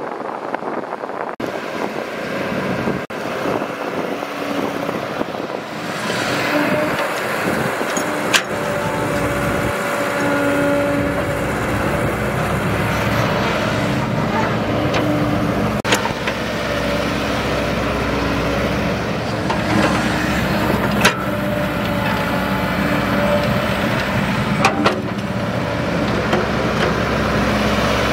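Diesel engines of a dump truck and a Caterpillar tracked excavator at work loading soil. The truck is driving at first; from about six seconds in the sound grows louder and steadier, with a steady whine under the engine noise. A few sharp knocks sound as the excavator's bucket digs and dumps soil into the truck's steel bed.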